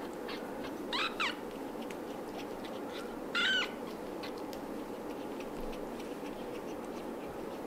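Very young tabby kitten mewing: two short, high squeaks close together about a second in, then one longer mew about three and a half seconds in.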